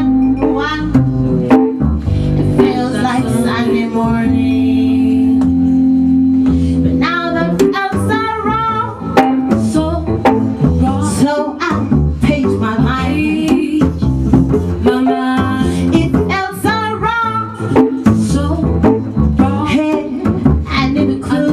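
Live band music: women singing over a plucked upright double bass.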